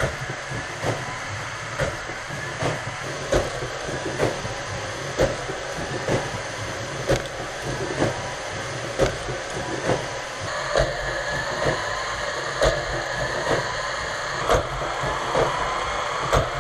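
K'Nex roller coaster in motion: plastic cars and track rattling steadily, with a sharp click about once a second. About ten seconds in, a higher whine joins the rattle.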